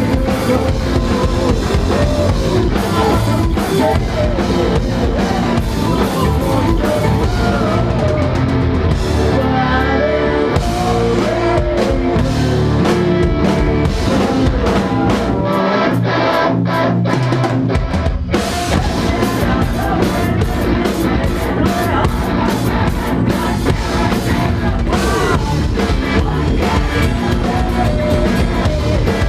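Live rock band playing loud with drum kit and guitars. The bass and kick drop out for about two seconds past the middle, then the full band comes back in.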